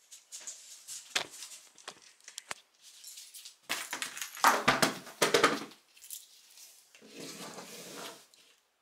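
A small Shiba Inu moving about on a foam floor mat: a few sharp clicks, then a loud stretch of rapid rhythmic scratching about four seconds in, and a softer stretch near the end.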